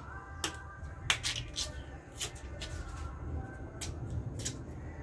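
Kitchen knife scraping and cutting the peel off a cassava root: short, sharp scrapes and clicks at irregular intervals.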